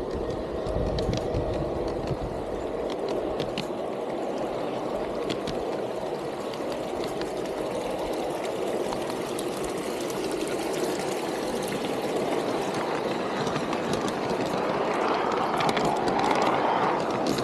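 Garden-scale model train running along its outdoor track, heard from on board one of its cars: a steady rolling noise of wheels on rail with scattered clicks, growing somewhat louder near the end.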